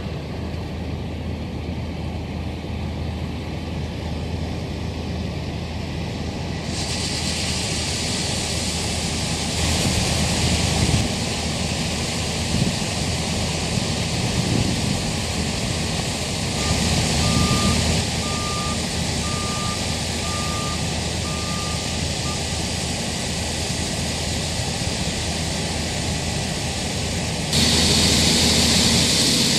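Diesel engines of harvest machinery, a combine harvester and tractor, running steadily with a deep hum. The sound shifts abruptly to a louder, hissier engine noise three times. In the middle a reversing alarm beeps about six times, roughly once a second.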